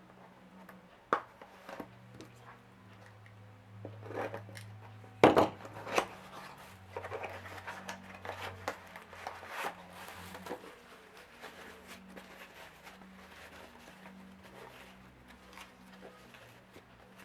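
Small gift packaging being opened and handled by hand: rustling and scraping with scattered sharp clicks and knocks, the loudest about five seconds in.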